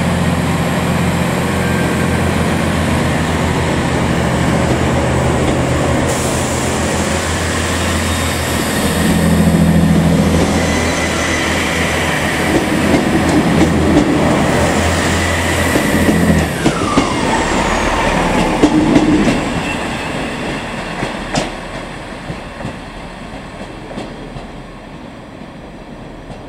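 Class 158 diesel multiple unit departing: its underfloor diesel engines run under power as the four coaches pass close by, with clicking of wheels over rail joints. A high whine drops in pitch about two-thirds of the way through, and the sound then fades steadily as the train pulls away.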